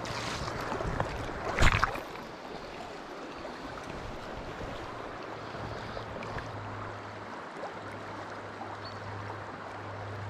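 Steady rush of flowing river water. The first two seconds are busier, with one brief loud burst just under two seconds in, and a low steady hum joins from about halfway.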